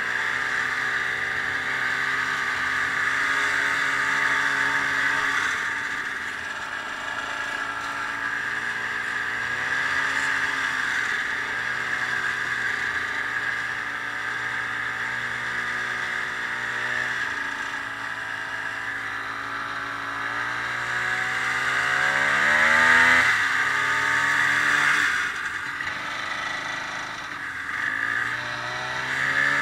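Snowmobile engine running while riding, its pitch rising and falling with the throttle and climbing steeply a few times in the second half.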